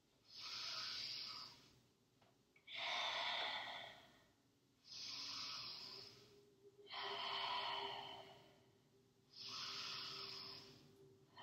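A woman's deep, audible breathing: five slow breaths in and out, each about a second and a half long, with short quiet gaps between them.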